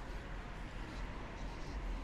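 Steady city street ambience: a low, even hum of distant traffic, with no distinct events.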